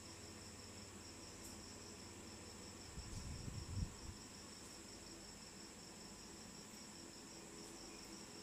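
Crickets chirping steadily in the background, a continuous high trill. A few soft, low handling knocks come about three to four seconds in as hands work the slip-on exhaust muffler.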